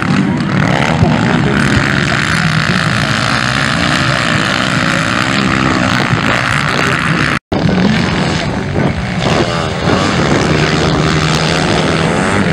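Motocross dirt bike engines revving hard, the pitch rising and falling as the bikes accelerate and back off through corners and over a jump. The sound cuts out for an instant about seven seconds in.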